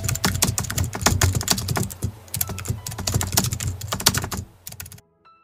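Rapid computer-keyboard typing sound effect, many irregular keystrokes a second, cutting off abruptly near the end; a few faint musical notes follow.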